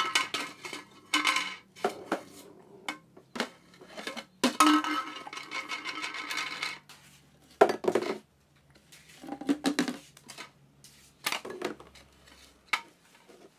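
Household objects clattering and knocking as a toddler handles them: irregular sharp clacks, a longer rattling stretch around the middle, and one loud knock a little before eight seconds in.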